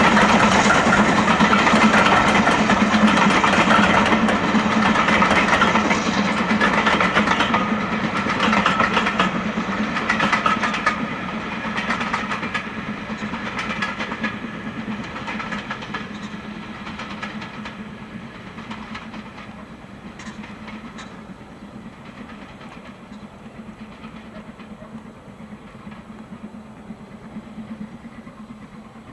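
BR Standard Class 9F steam locomotive working uphill with a train of coaches, its exhaust beats and the coaches' running gear passing close, then fading steadily as the train draws away up the climb.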